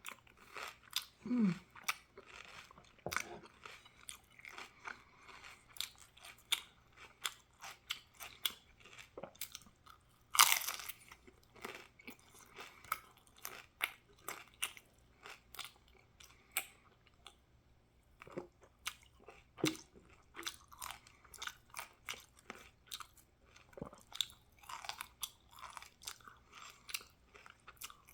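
A person biting and chewing crisp chicken tostadas, with irregular crunches throughout; one crunch about ten seconds in is much louder than the rest.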